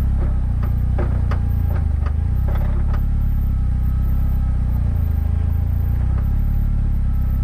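Westfield sports car running with a steady low engine drone, and a string of sharp, irregular knocks over the first three seconds or so: the knocking noise being hunted down.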